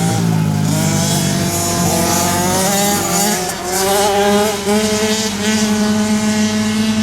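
Several flat-track racing motorcycles running at high revs around a dirt track. Their engine pitch climbs and drops back several times as the riders accelerate and shift.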